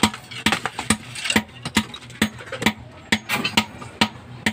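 Steady hammering with a long-handled hammer, sharp metal-on-masonry blows at about two a second, breaking up concrete.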